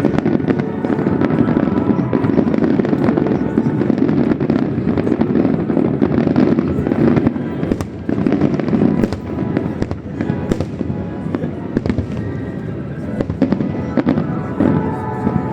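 Fireworks display: shells bursting in quick, overlapping succession with crackling, and one sharper bang about ten seconds in.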